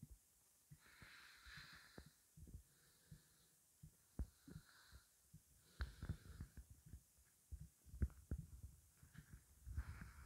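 Faint, scattered gurgles and soft pops from a hungry, empty stomach. A few slightly louder pops come about four, six and eight seconds in.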